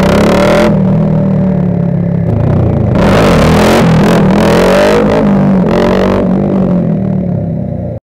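Honda Grom MSX125's single-cylinder 125cc engine through a cheap aftermarket dual-outlet exhaust, revving hard as the bike pulls away, then easing off. About three seconds in it revs up again as the front wheel lifts, then dies down before cutting off suddenly at the end.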